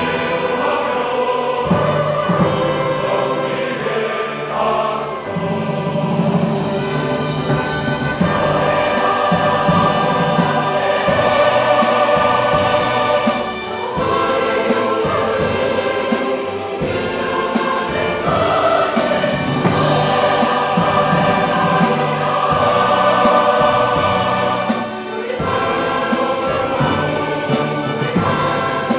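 Combined church choir singing a sacred anthem in full voice, with orchestral accompaniment, phrase after phrase with short breaths between.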